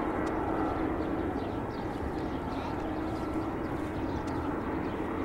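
Airbus A330-200's General Electric CF6-80E1 turbofan engines running at low taxi thrust: a steady jet hum with a held low tone.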